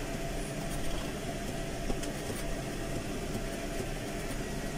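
Fendt 310 tractor's diesel engine running steadily, heard from inside the cab as the tractor drives slowly along a rough field track.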